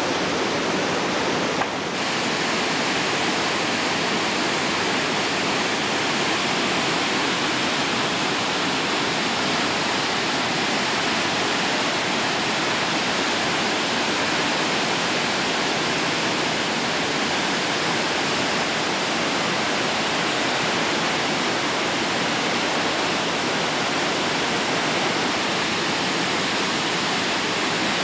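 The Uruguay River's whitewater rushing through a narrow rock gorge: a steady, unbroken roar of churning rapids. A brief click and dip in the sound about two seconds in.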